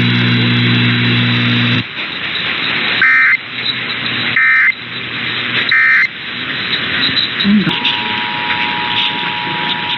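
Emergency Alert System tones heard over AM radio static. After a low steady hum cuts off about two seconds in, three short bursts of SAME digital data tones follow, the end-of-message code closing the test. Near the end the steady two-tone EAS attention signal begins.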